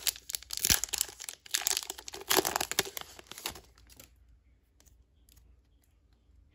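A Pokémon trading card booster pack's foil wrapper being torn open and crinkled by hand, a dense run of tearing and crinkling for about three and a half seconds, then it falls much quieter as the cards are taken out.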